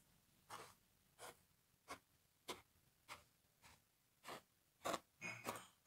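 Plastic toy horse being stepped through a loose granular arena footing: faint, soft scuffs at an even walking pace, about one and a half a second.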